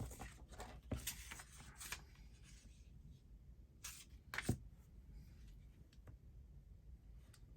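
Faint paper handling as a sheet of paper is glued and pressed onto a journal page: soft rustles and a handful of light taps, the clearest about four and four and a half seconds in.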